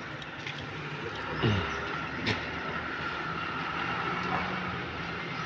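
Steady vehicle engine noise from nearby road traffic, with a steady low hum and a higher tone. A short falling tone comes about a second and a half in, and a single sharp click a little after two seconds.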